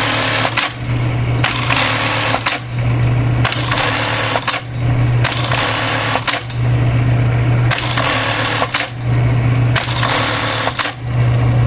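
Juki LK-1852 industrial bar tacker sewing repeated tack cycles: bursts of rapid stitching about a second long, one after another with short pauses, over the steady hum of the machine's motor.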